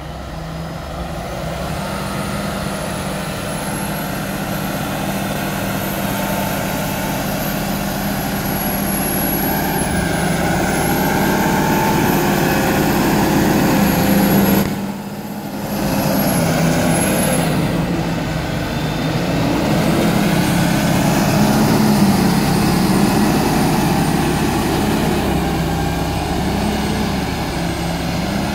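Fendt tractor's diesel engine running under load while its front-mounted silage blade pushes chopped grass across a silage clamp, with a faint high whine above the engine. The engine note rises and falls in the second half, and the sound drops briefly about halfway through.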